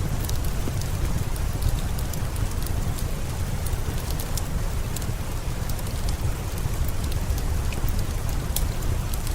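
Steady rain falling in an even hiss over a deep, constant rumble, with scattered sharp crackles and pops of a wood fire burning in a fireplace.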